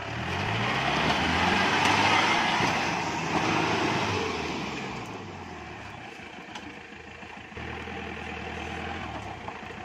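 An off-road SUV's engine revving hard under load as it climbs over rocks, with the rush of spinning tyres and scattered gravel. The effort eases after about five seconds, and the engine runs on more steadily near the end.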